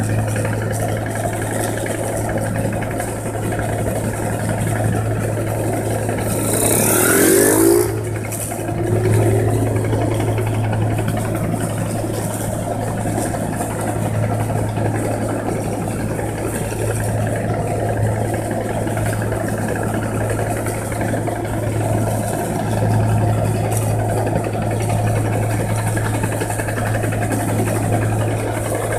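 New Holland 1545 combine harvester's diesel engine running with a steady low hum. About seven seconds in, a brief, louder rushing sweep rises over it.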